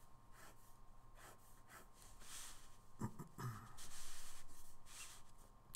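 Ballpoint pen sketching straight lines on a sheet of paper: a few faint scratchy strokes, the longest lasting about a second past the middle. Two soft low thumps about three seconds in.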